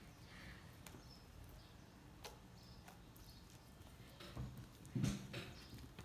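Homemade slime being mixed in a pot, with faint scattered clicks and two dull thumps near the end, the second the louder.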